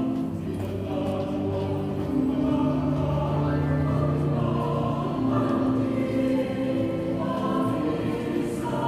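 A group of voices singing a Christmas carol together in chorus, with notes held for a second or two at a time.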